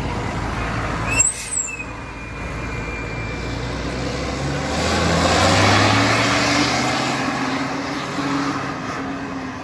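Traffic noise from a heavy road vehicle passing close by. Its engine hum and road noise swell to a peak about halfway through and then fade, with a short sharp hiss about a second in.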